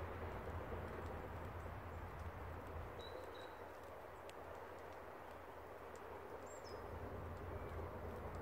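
Steady outdoor background noise with a low hum, over which a few faint, very high, thin calls of small birds sound: a pair of short peeps about three seconds in and a brief falling note about six and a half seconds in.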